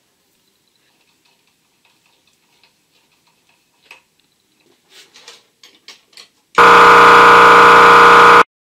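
Faint clicks and taps of a screwdriver tightening a hose clip on an air compressor's intake, then, about six and a half seconds in, the piston air compressor starts and runs very loud for about two seconds before cutting off suddenly. It has a hose and filter fitted to its air intake, meant to quieten it.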